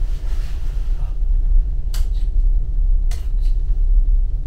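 Steady low rumble of the LNG-powered car ferry's engine vibration carried through the hull. About two and three seconds in come two sharp clicks from the bedside wall light switches.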